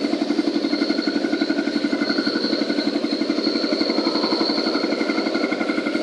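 Cement concrete mixer machine running steadily: an even, rapid engine chug with a thin, steady high whine over it.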